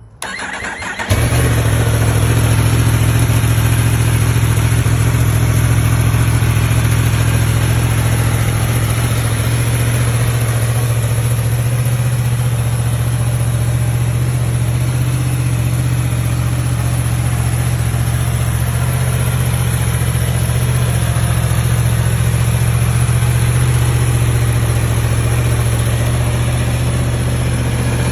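A superbike engine starts about a second in, then settles into a steady idle.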